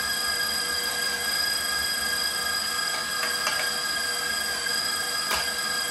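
KitchenAid stand mixer motor running at high speed, driving a rotating shredder drum attachment that is grating carrots: a loud, steady high whine, with a few short knocks about three seconds in and once near the end.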